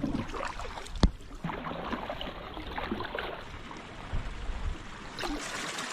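Kayak paddling through water among floating ice: irregular paddle splashes and water sounds, with one sharp knock about a second in and a smaller hit near the end.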